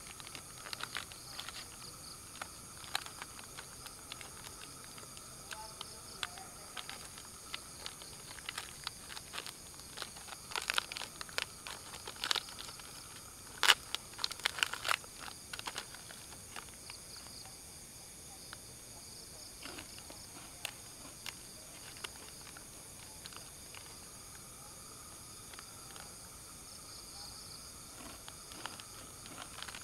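Foil snack wrapper of a wafer bar crinkling and crackling in handling as it is opened, in uneven bursts that are busiest and loudest about halfway through. Steady chirring of night insects underneath.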